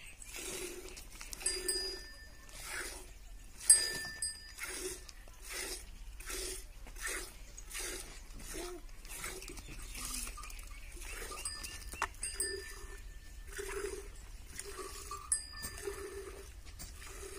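Cow being milked by hand: jets of milk squirting into a small steel pot in a steady rhythm, a little under two squirts a second. A sharp click stands out about four seconds in, and brief high ringing tones sound now and then.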